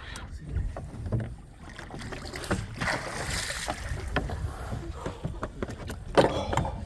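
Boat at sea: a steady low rumble of wind and water with scattered knocks and clicks. A rushing noise comes about two and a half seconds in, and a louder rushing burst about six seconds in.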